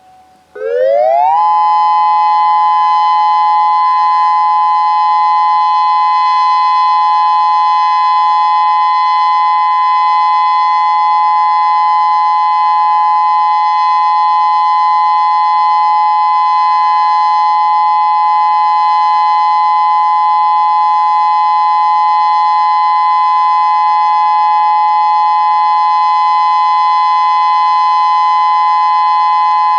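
Federal Modulator 6024 outdoor warning siren starting up, its pitch rising quickly over about a second, then holding a loud, steady tone of two close pitches sounded together.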